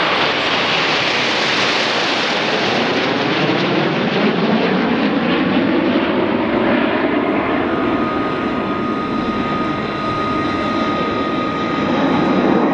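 Formation of Snowbirds CT-114 Tutor jets, each with a single turbojet, flying overhead with a loud, steady rushing jet noise whose pitch slowly rises as they pass. A thin steady whine joins it about halfway through.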